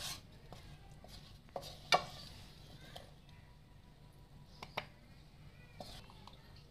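A few light clinks and scrapes against a stainless-steel mixer-grinder jar as fried onion and tomato are put in, the sharpest about two seconds in and a quick pair near five seconds.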